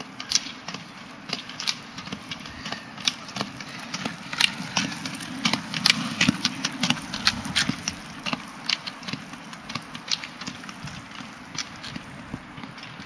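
Roller ski wheels rolling on wet asphalt with a steady low rumble, and ski pole tips clicking sharply on the pavement with each pole plant. Both grow louder as the skier passes close by in the middle, then fade.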